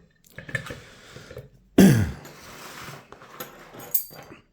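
Metal clinks and rattles as a euro lock cylinder and picking tools are handled on a workbench, with one sudden loud thud about two seconds in that carries a short falling low note.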